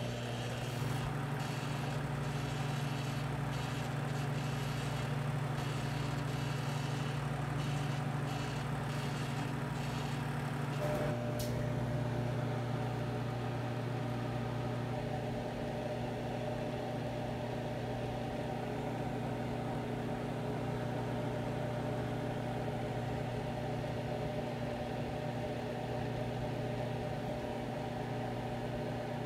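Microwave oven running with a steady hum while it cooks corn on the cob in the husk. The hum shifts slightly about eleven seconds in, when a new higher tone joins it.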